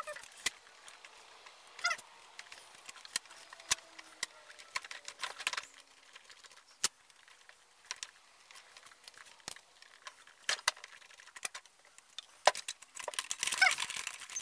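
Plastic trike parts and tools being handled on a workbench: scattered clicks and knocks, a brief squeak about two seconds in, and a louder squeaky scraping burst near the end.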